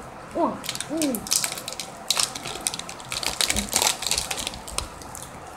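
Three short hooting notes, each rising then falling, made by blowing into clasped hands, followed by a few seconds of quick clicks and crinkling.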